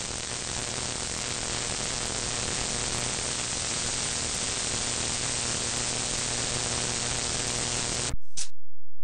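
Radio receiver static on an open 11-metre CB channel: a steady hiss with faint hum, no readable station coming through. About eight seconds in the hiss cuts off abruptly, followed by a short burst.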